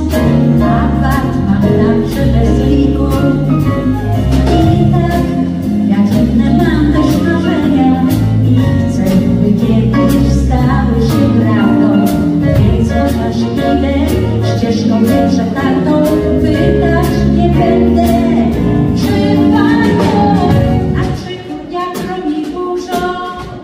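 Live pop band playing, with drums, bass, electric guitars and keyboards under singing; the band drops quieter about two seconds before the end.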